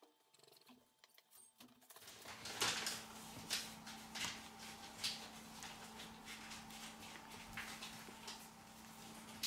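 Faint, irregular clicks and taps, roughly one a second, as a plastic spudger presses flex-cable connectors and small parts into place on a smartphone's motherboard. A low steady hum comes in about two seconds in.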